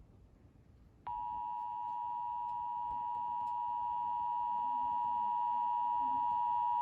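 Emergency Alert System two-tone attention signal (853 and 960 Hz sounded together), starting abruptly about a second in and holding steady and loud. It is the alert tone that precedes the spoken warning message.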